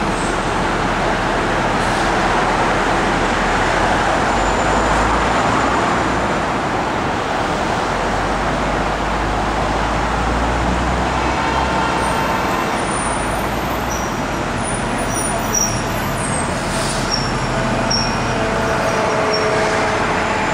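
Steady city traffic noise from passing cars and buses, swelling a few seconds in, with faint short high squeaks in the second half.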